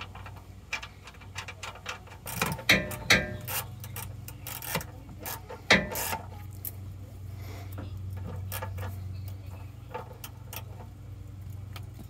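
Socket ratchet clicking in irregular runs as the oil drain plug is snugged back into the oil pan of a Hummer H1's 6.5 turbo diesel, the loudest clicks coming about two to four seconds in and again near six seconds, over a steady low hum.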